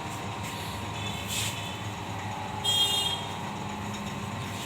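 Deki 201 vinyl sticker cutting plotter running, its motors whirring steadily. There is a brief high whine about a second in and a louder one just past the middle as the cutting head moves.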